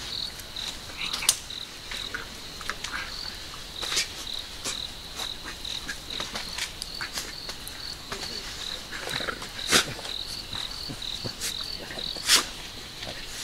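Crickets chirping in a steady, evenly pulsed high trill, with a few sharp pops and crackles standing out over it, the loudest about a second in, at four seconds, near ten seconds and near the end.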